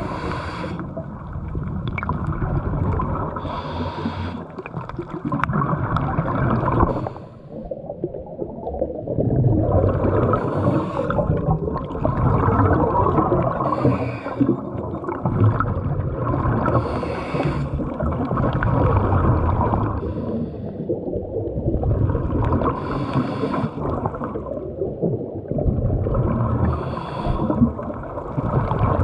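A diver breathing underwater: a steady low bubbling rumble, broken every three to six seconds by a short hissing rush.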